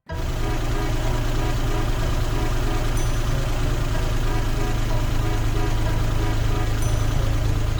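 A small electric motor running with a steady hum that starts abruptly, in the manner of a battery-powered toy's motor or pump.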